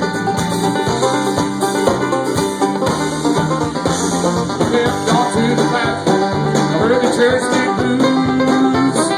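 Live bluegrass band playing an instrumental break, plucked strings over a steady bass beat.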